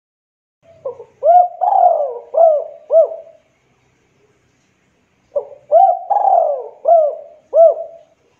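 Javanese local spotted dove (derkuku) cooing its song twice: each phrase is a run of about five short, rounded coos with one longer drawn-out coo among them, the second phrase coming about two seconds after the first ends.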